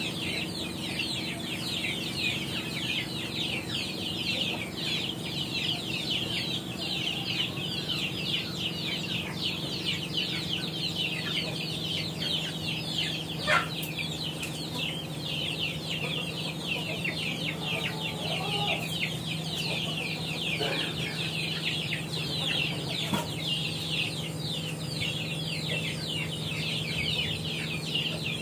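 Chickens calling without a break, many short high calls overlapping, over a steady low hum. One sharp knock comes about halfway through.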